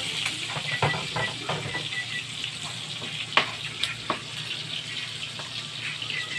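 Pork pieces with onion and garlic sizzling in a steel wok while a metal ladle stirs and scrapes them, with a few sharp clacks of the ladle against the pan.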